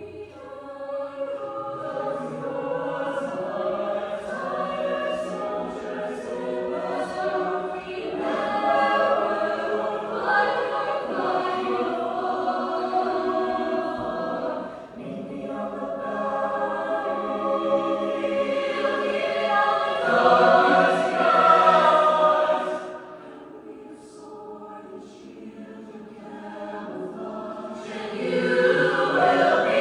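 A choir singing sustained chords, many voices together. It drops to a softer passage about two-thirds through, then swells loud again near the end.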